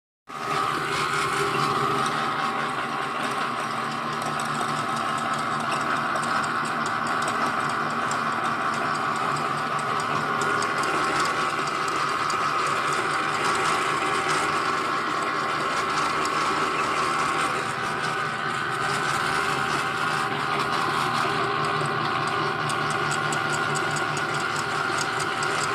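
Vertical pellet-making machine running steadily, a continuous mechanical drone with several held tones that does not change.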